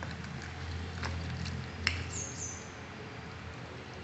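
A spoon stirring wet lemon curry in a glass bowl over a steady low hum. The spoon clicks against the glass about one and two seconds in, and a short high squeak follows just after the second click.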